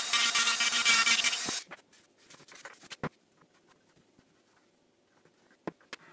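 Hand-held rotary tool with a small brush bit scrubbing old rubber surround residue off a woofer's frame rim, a steady whine with dense scraping, stopping about a second and a half in. Then soft brushing on the cone and a few light knocks near the end.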